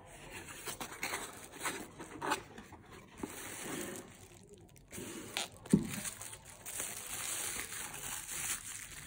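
A cardboard box being opened and a ceramic mug unwrapped from bubble wrap: rustling and crinkling plastic with scraping cardboard. A single sharp knock comes about halfway through.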